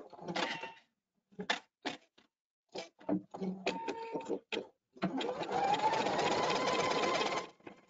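Pfaff embroidery machine beginning to stitch out the first colour of a design in the hoop: scattered short clatters, then about five seconds in a steady run of rapid stitching with a motor whine that rises slightly in pitch, stopping about two and a half seconds later.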